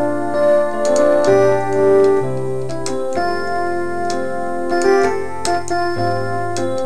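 Electronic keyboard played with a piano sound: slow sustained gospel chords over a bass line that moves to a new note every second or two.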